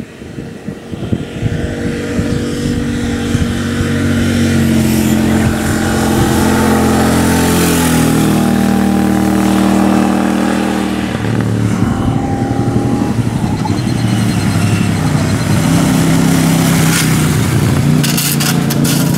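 Royal Enfield Shotgun 650's parallel-twin engine running under load as the motorcycle rides past, the revs climbing and dropping with throttle and gear changes.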